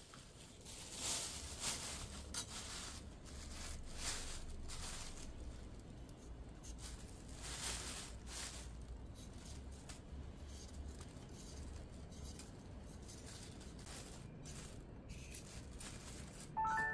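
Faint scattered rustles and clicks over a low steady hum. Music begins right at the end.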